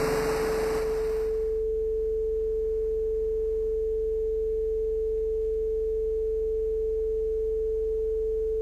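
A single pure, steady mid-pitched tone, like a test tone, held at an even level for about eight and a half seconds and then cut off abruptly, with a faint low hum underneath.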